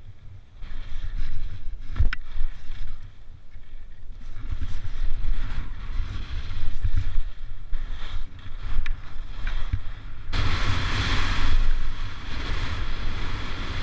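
Wind buffeting a GoPro microphone while skiing downhill, a constant low rumble, with skis hissing and scraping over the snow; the scraping hiss grows much louder about ten seconds in. A couple of sharp clicks about two seconds in.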